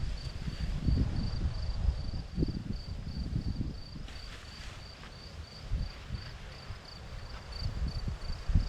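A cricket chirping steadily in short high pulses, about four a second, over wind buffeting the microphone in low gusts that ease off about halfway through.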